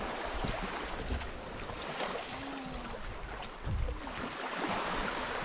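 Small waves washing on a sandy shore, with wind rumbling on the microphone.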